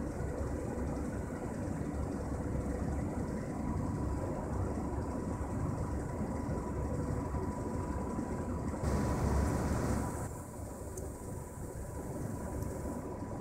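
Small motor of a rotating display turntable running: a steady low rumble with a faint, even whine over it. About nine seconds in the sound turns louder and brighter for about a second, then settles a little quieter.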